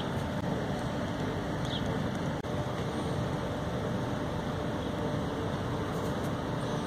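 Steady outdoor background noise: a low, even rumble with no distinct event.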